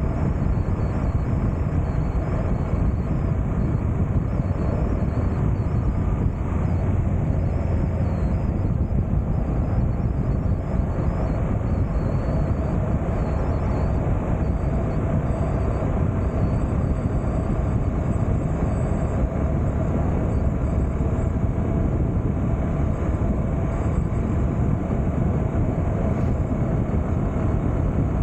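Steady wind rush and road noise on a motorcycle-mounted microphone while riding at a constant speed, with the 2019 Honda NC750X's parallel-twin engine running steadily underneath.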